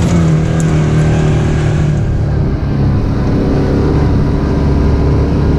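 Engine of an off-road safari ride vehicle running at a steady pitch as it drives along a paved track, with a constant rumble and rough rolling noise, heard from on board.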